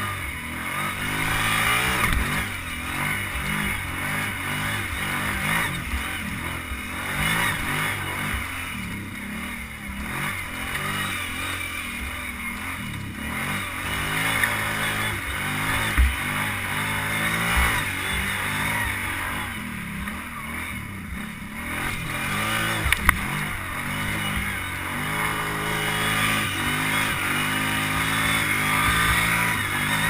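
ATV engine running under changing throttle, its pitch rising and falling as it is revved and eased off, with a few sharp knocks along the way.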